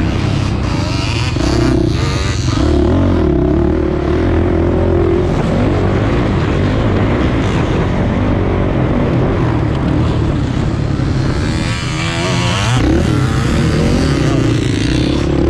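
A three-wheeler ATC's race engine, heard from on board at full race pace. Its note rises and falls as the throttle opens and shuts through the turns, with a brief drop and a climb back up about twelve seconds in.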